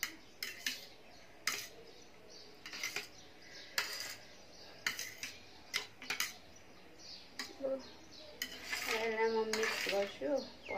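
Metal fork and spoon clinking and scraping against a serving tray as a heap of noodles is tossed and mixed, in irregular sharp clinks.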